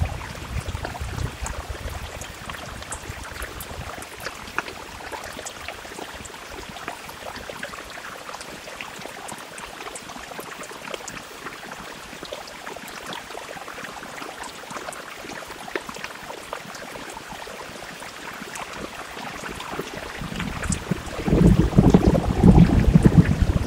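Heavy rain pattering on window glass: a steady hiss with many small drop ticks. About twenty seconds in, a deep low rumble builds and grows loud.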